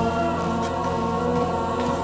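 Horror film score: a choir holding sustained chords over a steady low tone.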